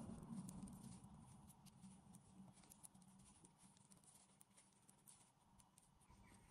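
Faint, light clicks of metal knitting needles and a soft rustle of yarn as stitches are worked, in a row of purl stitches and yarn-overs. Otherwise near silence.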